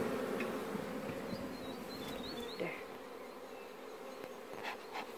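Honeybees buzzing steadily as they fly around nuc hives close to the microphone.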